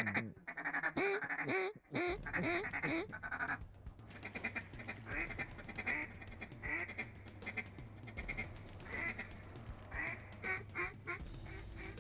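Duck quacking: a quick run of loud quacks in the first few seconds, then fainter repeated quacks and chatter.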